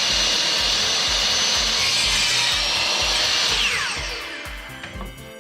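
Electric saw cutting through wood with a steady high whine, then switched off about three and a half seconds in, its blade winding down in falling pitch. Background music with a steady beat runs underneath.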